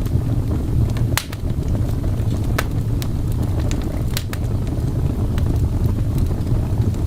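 Fireplace crackling, with sparse sharp pops over a steady low rumble.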